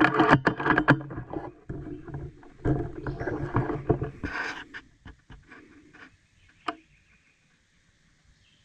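Rustling and crackling, dense for the first few seconds and then thinning to a few sharp clicks, over a faint steady high hum.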